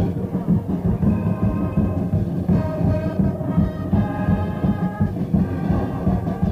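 High school marching band playing: brass sounding held chords over a steady drum beat, recorded on a cassette deck in the stands.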